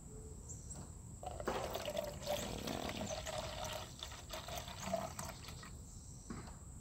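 Liquid herbicide concentrate pouring from a plastic jug into a plastic measuring cup. It starts about a second and a half in and tapers off about a second before the end.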